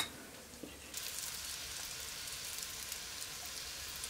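Syrniki (cottage-cheese patties) frying in melted butter and vegetable oil in a cast-iron skillet: a steady sizzle with small crackles and pops, starting about a second in after a brief click.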